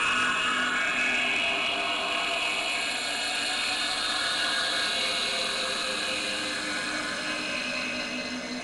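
Electronic music drone: many sustained tones layered over a hissing, whirring texture, with no beat, slowly getting quieter near the end.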